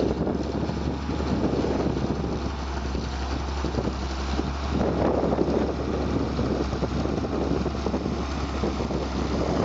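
County 1184 four-wheel-drive tractor's diesel engine running steadily under load, pulling a six-furrow reversible plough through the ground.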